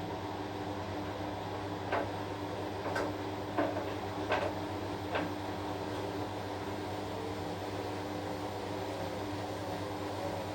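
Washing machine running with a steady hum, broken by five short knocks between about two and five seconds in. A faint tone wavers up and down near the end.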